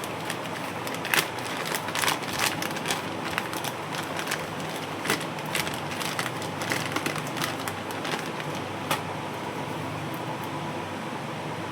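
Packaging and small parts being handled: irregular crinkles, crackles and clicks over a steady background hiss.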